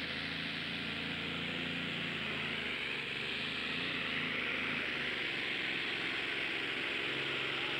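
Multi-engine modified pulling tractor running flat out under load on a pull, a steady, hissing engine din. Its engines are being pulled down: the commentator judges the gear was a bit too high.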